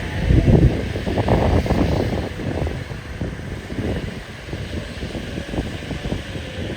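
Mahindra jeep's DI turbo diesel engine running while driving off-road, with wind buffeting the microphone; the rumble and buffeting are loudest in the first two seconds, then settle.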